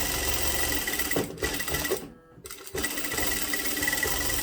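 Sewing machine stitching a straight seam with a quilting guide bar foot, running at steady speed with a thin whine, in two runs broken by a brief pause about two seconds in.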